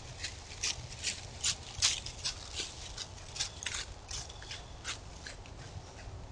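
A whitetail deer walking through dry leaf litter: irregular crunching steps, about two a second, over the trail camera's steady low electrical hum.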